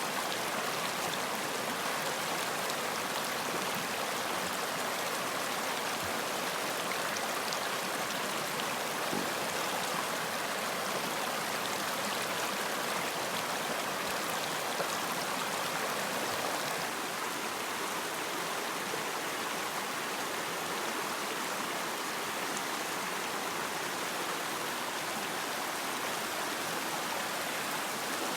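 Running water from a stream flowing steadily. It makes an even rushing sound, dipping slightly in level about two-thirds of the way through.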